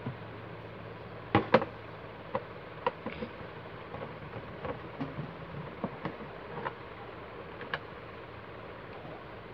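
Clicks and light knocks from hands handling the plastic rear casing and cables of a CRT television. Two sharp clicks come about a second and a half in, followed by fainter scattered ticks.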